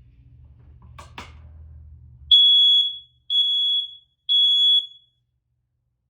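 Smoke alarm sounding on test: a click or two, then three loud, high-pitched piezo beeps about a second apart and a pause, the temporal-three pattern of the standard fire evacuation signal, showing the alarm works.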